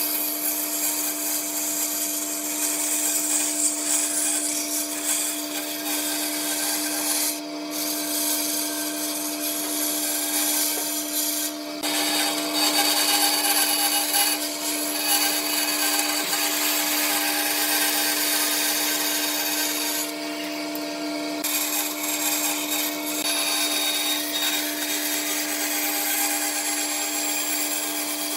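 An electric power tool running steadily and working wood: a constant motor hum under a rasping hiss. The hiss breaks off briefly three times while the motor keeps running.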